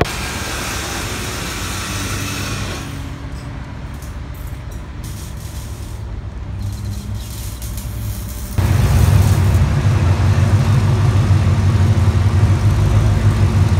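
Pickup truck's engine running steadily through a freshly welded exhaust: 3-inch piping with a Y-pipe, Pacesetter headers and a Carven R Series muffler. About two thirds of the way in the exhaust note suddenly gets much louder and deeper.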